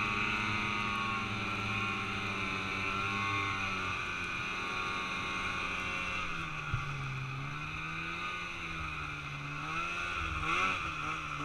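Snowmobile engine running at a steady speed, then about halfway through its pitch drops and begins to rise and fall as the throttle is eased and worked at low speed in deep snow. A couple of short knocks come near the end.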